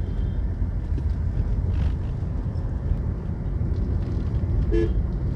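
Car driving on a road: a steady low rumble of engine and tyre noise. A brief short tone sounds a little before the end.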